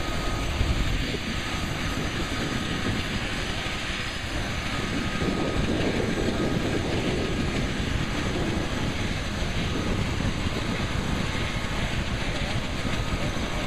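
Boeing CH-47 Chinook tandem-rotor helicopter running on the ground as it warms up, its twin turboshaft engines and two rotors turning, making a steady, loud noise. The noise swells slightly about five seconds in.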